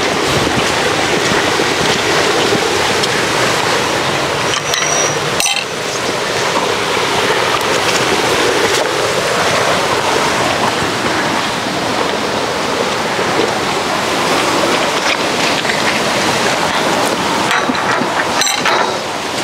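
Steady, loud rushing noise of falling or running water, with two brief knocks, about five seconds in and near the end.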